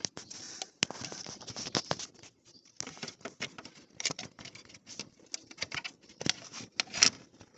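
Scattered clicks, taps and rustling of hands reaching into a car's engine bay among hoses and plastic covers, with handling noise from the phone camera; the sharpest click comes near the end.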